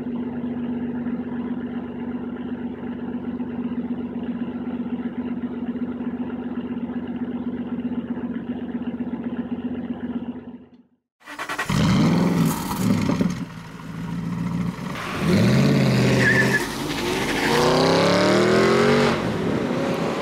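Aston Martin V12 Vantage's V12 engine idling steadily, just woken from long storage. About eleven seconds in it cuts off and a second Aston Martin drives by, its engine revving up and down and then pulling hard through the gears with rising pitch.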